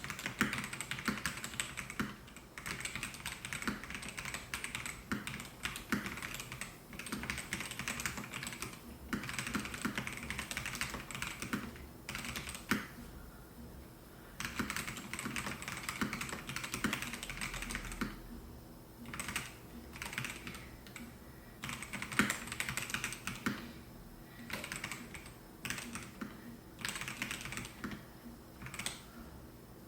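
Typing on a Melgeek Mojo68 mechanical keyboard with white Pro switches: fast runs of key clacks, broken by brief pauses twice in the middle.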